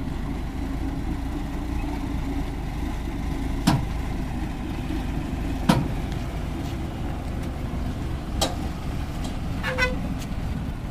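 Old crane tow truck's diesel engine running steadily at low speed while it tows a combine harvester, with four sharp knocks, the loudest about six seconds in.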